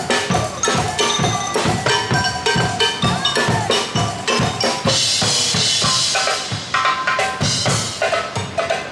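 Drum band playing on a passing river boat: a steady beat of bass and snare drums, about two to three strikes a second, with a brighter cymbal-like wash about five seconds in.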